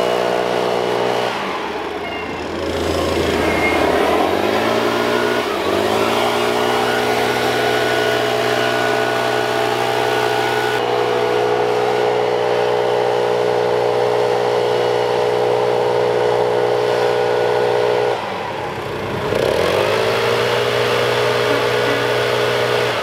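Makita PM7650H MM4 four-stroke backpack mist blower running at high throttle, a steady engine drone. Its pitch drops and climbs back as it is throttled down and up, about a second in and again near the end.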